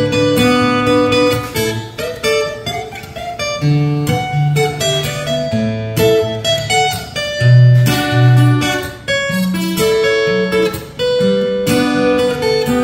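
Solo acoustic guitar played fingerstyle: a melody plucked over held bass notes.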